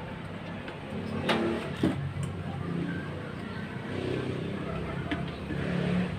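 A motor vehicle engine running steadily in the background, its low hum shifting a little in pitch, with a few sharp clicks and knocks of small parts being handled, about four in all.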